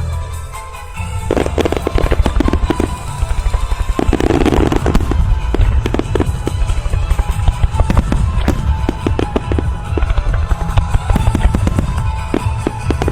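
A fireworks starmine barrage: many aerial shell bursts going off in quick succession with sharp bangs and crackle, over music played with the show.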